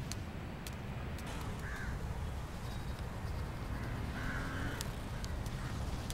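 A crow cawing a couple of times, about two seconds in and again near the four-second mark, over a low steady background rumble.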